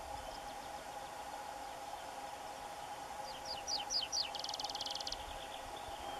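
Tree pipit singing one song phrase about three seconds in: a run of six quick falling notes followed by a fast, even trill, with a few fainter notes around it. A steady low hum runs underneath.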